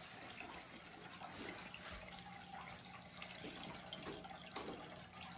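Faint steady trickle of water from a pet drinking fountain, with a low pump hum. A few faint rustles and ticks of toilet paper being pawed, the clearest near the end.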